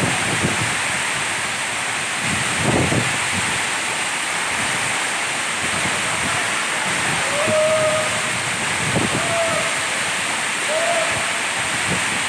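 Waterfall rushing, a steady even roar of falling water, with a brief low gust of wind on the microphone about three seconds in.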